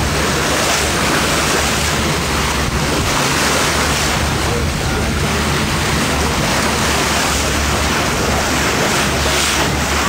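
Water foaming and rushing along the hull of a moving boat, with a steady low engine hum underneath and some wind on the microphone.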